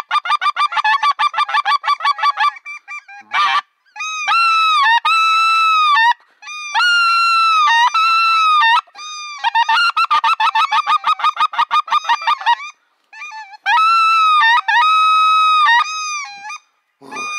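Geese honking: quick runs of clear, high honks repeated in several bouts with short breaks between them.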